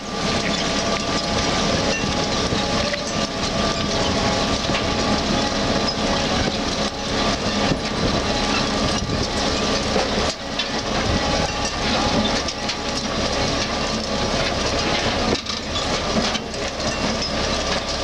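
Grimme SE 140 trailed potato harvester at work: its lifting webs and conveyors rattle with potatoes, stones and clods, over the steady running of the tractor that pulls it.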